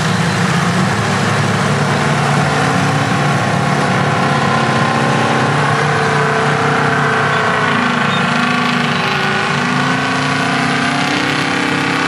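Large diesel engines of classic earthmoving machines working: a Caterpillar motor scraper, then a loaded off-highway dump truck driving through. The engine note wavers up and down.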